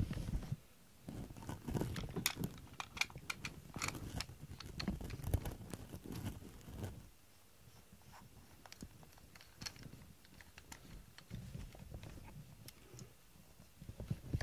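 Handling noise from a camera tripod and its phone mount being adjusted by hand: scattered plastic clicks, taps and low knocks. The noise is busy for the first half and sparser and fainter after that.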